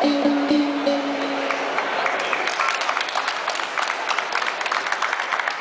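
The Baul folk song ends on a held note that fades out about two seconds in, and audience applause takes over.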